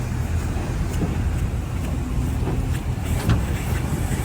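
Livestock truck's engine idling: a steady low drone.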